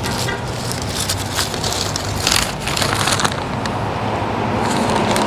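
Aluminium foil and paper taco wrapping crinkling in several short bursts as it is handled, over a steady low hum of road traffic.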